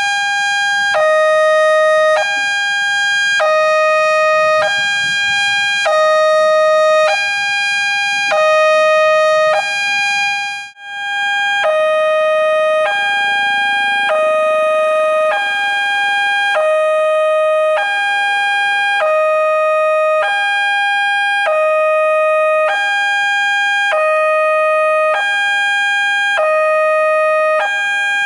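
Railway level-crossing warning alarm sounding a two-tone electronic signal, a lower and a higher note alternating about every three-quarters of a second, with a brief break about 11 seconds in.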